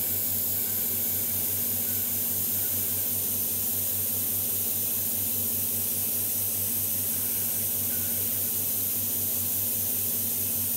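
Steady loud hiss with a low hum underneath, unchanging throughout, typical of the CNC router's vacuum suction bed pump running.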